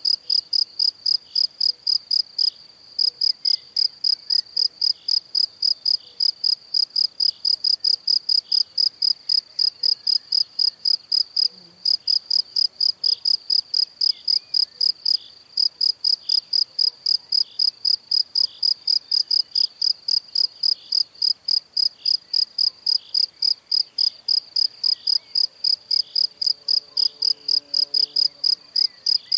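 A cricket chirping close by: short, high-pitched chirps evenly spaced at about three to four a second, pausing briefly a few times.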